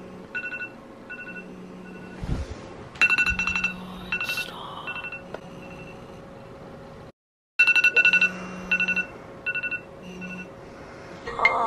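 Smartphone alarm ringing: a repeating electronic tone played in short beeps and quick clusters of beeps.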